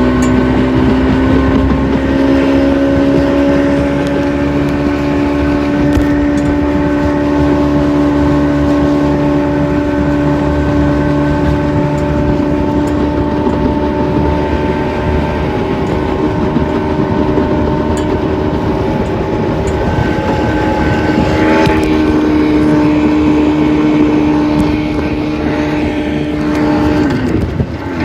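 Boat outboard motor running steadily under way, its pitch stepping up slightly about three-quarters of the way through. Near the end the engine note drops and falters as the motor starts to die, its fuel line having come off.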